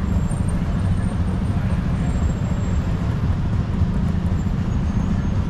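Steady low rumble of city street traffic, with indistinct voices in the background.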